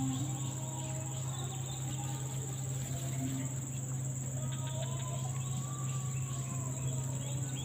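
Insects calling in a steady, unbroken high-pitched drone, with a steady low hum underneath.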